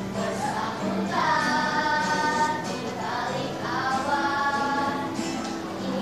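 A group of girls singing a song together to acoustic guitar accompaniment, with two long held notes in the middle.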